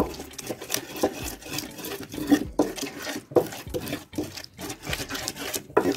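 Wooden pestle grinding and scraping onion and garlic against the ridged inside of an earthenware grinding bowl, in repeated strokes roughly three a second. The wet paste is being worked until smooth.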